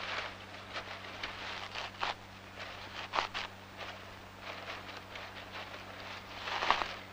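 Irregular rustling and crackling of dry grass and twigs as a Eurasian red squirrel moves about in its drey, with louder rustles about three seconds in and near the end. A steady low hum runs underneath.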